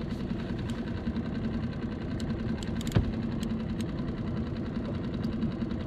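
Small outboard motor on a skiff idling with a steady low hum. A single sharp knock comes about halfway through.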